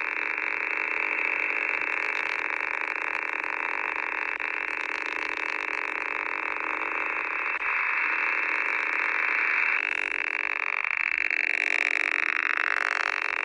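Shortwave signal on 15730 kHz heard through a receiver in USB mode: a steady, rough noise-like buzz filling the narrow audio passband, with faint steady tones underneath. About ten seconds in, the receiver is retuned toward 15720 kHz and sweeping tones glide through the noise. It is one of the new 'Buzzer'-type signals on frequencies ending in 730 kHz, which the uploader says might also be over-the-horizon radar.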